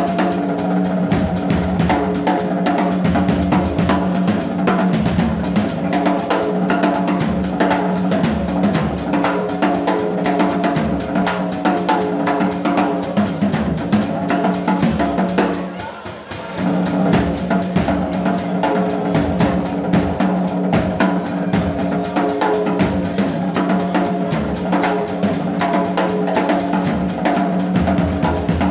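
Rock drum kit played hard and busily, with bass drum, snare, toms and cymbals, over a steady low held note. The playing drops away for about a second midway, then picks up again.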